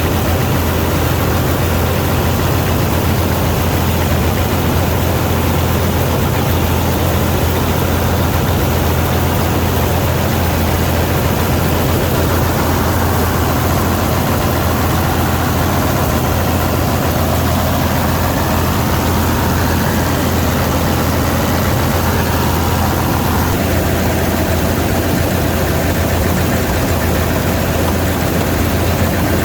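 Vistula KZB-3B combine harvester running steadily: a continuous low engine drone with machine noise spread over it.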